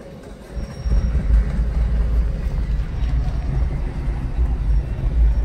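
Low, steady rumble of a car in motion heard from inside the cabin, the road and engine noise lifting about a second in.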